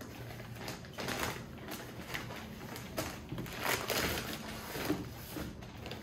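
Amazon mailer bag rustling and crinkling in irregular bursts as it is opened and handled.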